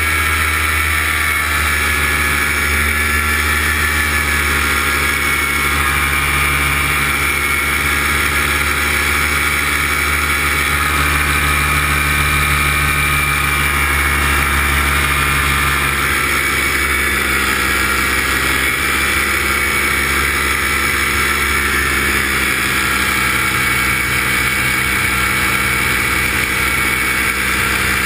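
Light aircraft engine running steadily at cruise, heard from on board, with small slow changes in pitch.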